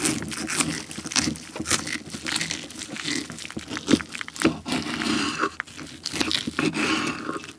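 Knife sawing through a roast German pork hock (Schweinshaxe), its crisp skin crackling and crunching in a rapid, uneven run of sharp snaps, a few louder than the rest.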